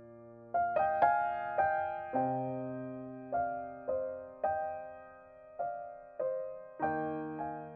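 Background music: a slow piano melody, single notes struck about every half second and left to ring out.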